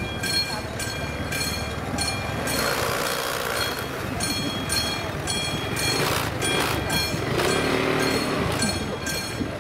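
Railway level-crossing warning bell ringing in a steady rhythm, about two strokes a second, while a TGV trainset rolls slowly over the crossing with a low rumble of wheels.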